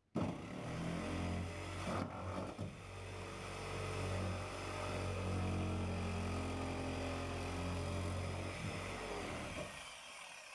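Jigsaw motor running steadily while cutting through a wooden bulkhead, easing off near the end. The blade is running off at an angle, which the owner puts down to a loose blade.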